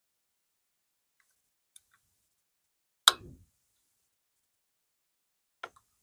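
Small hand tools and a screw being handled: a few faint ticks, one sharp click about three seconds in, and a lighter click near the end.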